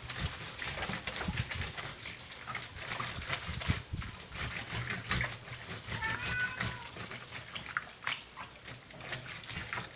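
Hands squeezing and kneading water-soaked torn paper in a plastic basin, a steady run of wet squelches and crackles as the paper is broken down into papier-mâché pulp. A brief high-pitched tone sounds about six seconds in.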